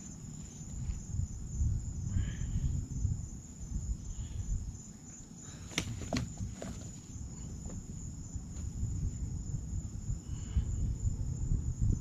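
Night insects trilling steadily in a high, even tone, over a low rumble, with two sharp clicks about halfway through.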